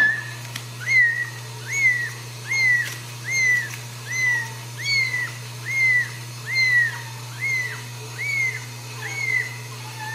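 A newborn Ragdoll kitten mewing over and over, about a dozen high, piercing cries, each rising sharply and then falling away, roughly one every second. These are the cries of a kitten that has crawled out of the nest and is calling for its mother.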